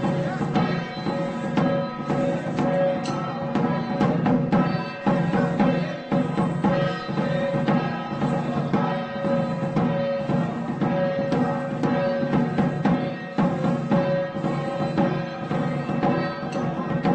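Traditional Taiwanese temple procession music: a held, reedy melody with many overtones over busy, continuous drum and gong strikes.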